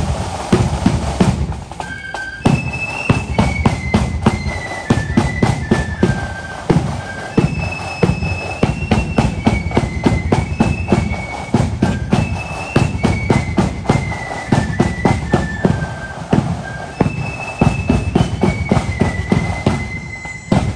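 Marching flute band playing a march: a high, single-line flute melody over bass drum and snare drums. The drums play alone at first, and the flutes come in about two seconds in.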